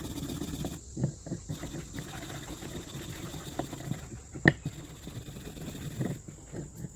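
Hand brush scrubbing a pair of rusty steel lineman's pliers: irregular scratchy strokes, with one sharp click about four and a half seconds in.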